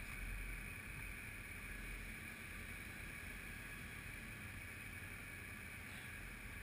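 ATV engine idling, heard faintly as a low, steady rumble with a light hiss over it.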